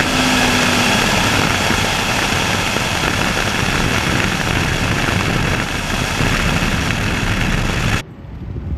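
Drag race car engine running hard, a loud steady engine-and-rushing noise with no clear pitch, that cuts off suddenly near the end to a much quieter background.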